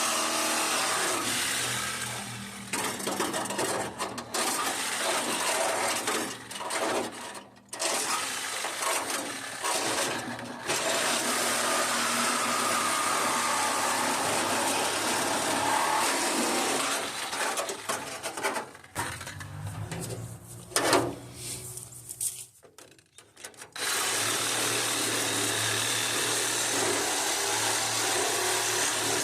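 A handheld power tool running in long spells, stopping briefly a few times, while parts are cut off a truck's front end.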